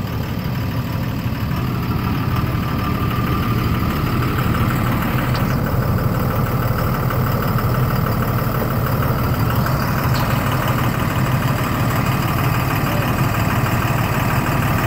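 A large medium-duty truck's engine idling steadily.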